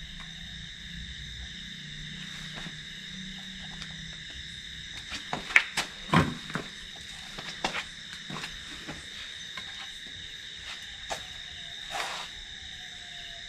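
Night insects calling in a steady, continuous high trill. A scatter of short knocks and scuffs comes through the middle of it and once more near the end.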